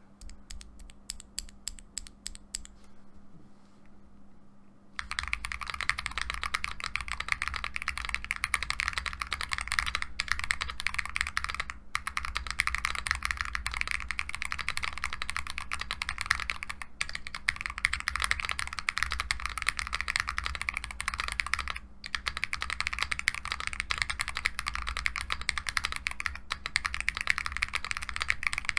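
Typing on a Bakeneko60 mechanical keyboard with lubed Akko CS Lavender Purple switches and PBT keycaps. A few single key presses come first, then fast continuous typing starts about five seconds in, with a few brief pauses.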